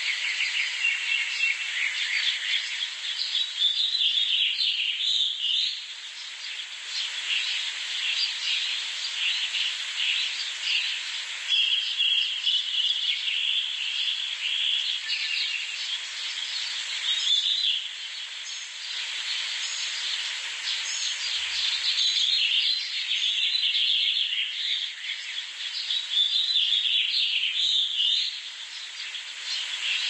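Continuous high-pitched rasping, hissing begging chorus with chirps mixed in, typical of European green woodpecker nestlings calling inside the nest hole while an adult comes to the entrance. It dips briefly a few times.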